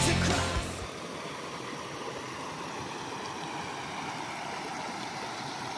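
Rock music ends in the first second, leaving a steady rushing noise.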